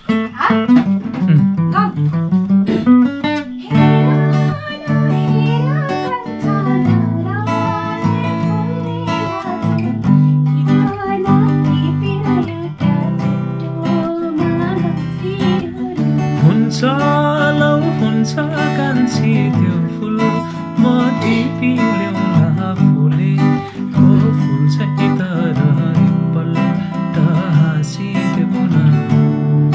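A man singing a song while strumming an acoustic guitar.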